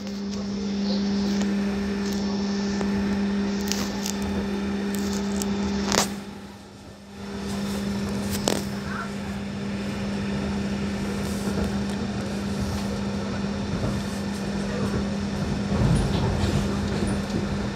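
BN coast tram running along the line: a steady electrical hum over rolling wheel-on-rail noise, with sharp clicks about six and eight and a half seconds in. The noise drops away briefly just after the first click, then picks up again.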